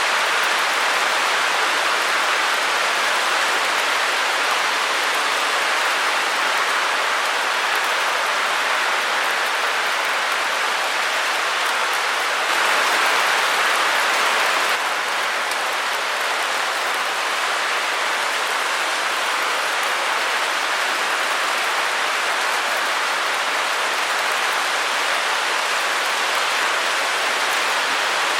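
Continuous white-noise hiss, even and without any tone, brightest in the upper-middle range. About halfway through it grows slightly louder and brighter for a couple of seconds, then settles back.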